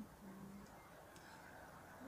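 Near silence: faint outdoor background, with one short low hum near the start.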